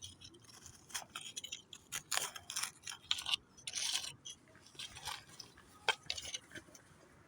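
Irregular short scratchy scraping and rustling noises, a dozen or so in no steady rhythm, a little louder about two seconds in and around four seconds in.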